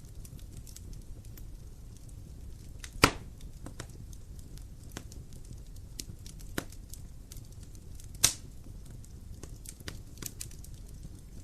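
Wood fire in a fireplace crackling: scattered small ticks and snaps over a low, steady rumble, with two sharp, loud pops, about three seconds in and about eight seconds in.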